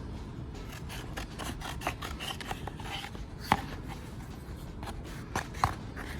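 Gasket material being cut and trimmed by hand: scraping and rubbing with scattered small clicks, and two sharper taps about three and a half and five and a half seconds in.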